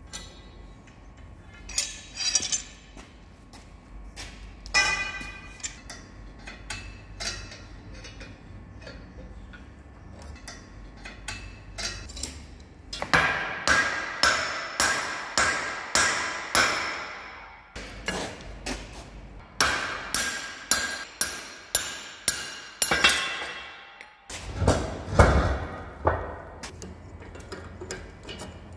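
Club hammer striking steel: two runs of sharp, ringing blows at about two a second, the bail arm and hollow bars being knocked into alignment in a welding jig. Single metal clanks come between them as steel clamps are set.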